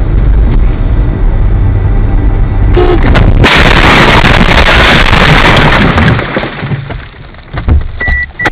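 Car dashcam audio of a road crash: the heavy, distorted rumble of the car in motion, then about three and a half seconds in a sudden loud crash noise lasting a couple of seconds. A short high beep sounds near the end.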